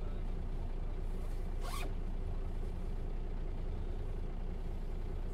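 Mercedes-Benz O407 bus running, heard from inside as a steady low rumble, with one short swishing sound a little under two seconds in.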